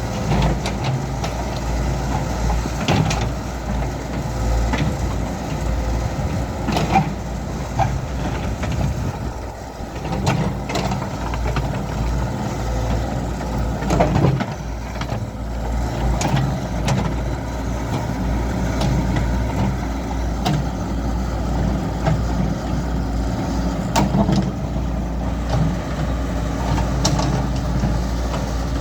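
Caterpillar excavator's diesel engine running steadily under work, with a few sharp knocks and clanks scattered through.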